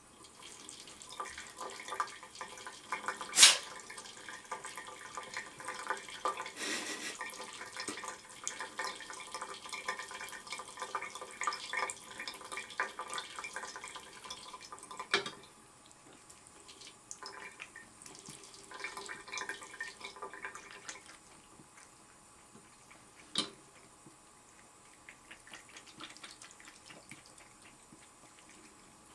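Faucet water running and splashing unevenly in a sink as cats paw and bite at the stream. The splashing is dense for about the first fifteen seconds, then comes and goes in shorter bouts. A few sharp knocks stand out, the loudest a few seconds in.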